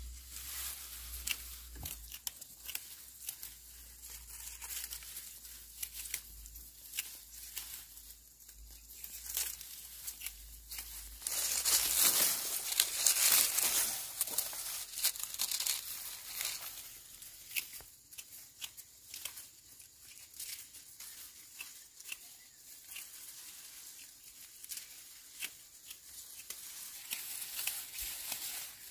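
Dry sticky-rice stalks rustling and crackling as they are cut and gathered by hand, with many small snaps, louder for a few seconds about eleven seconds in.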